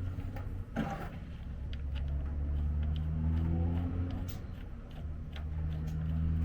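Freightliner Columbia semi truck's diesel engine running at idle, its revs rising briefly in the middle and settling back, with a few light metal clicks over it.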